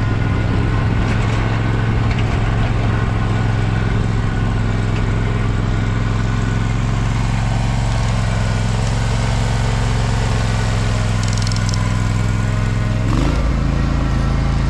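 Engine of a John Deere Z530R zero-turn mower running steadily under load while it plows snow, its note shifting about thirteen seconds in.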